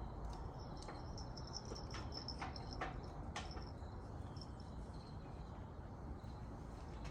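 Faint outdoor background with a high, thin chirping and a few light clicks or taps in the first half.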